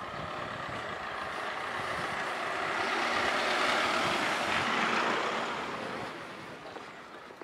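A small van driving past close by, its engine and tyre noise swelling to its loudest about halfway through and then fading away.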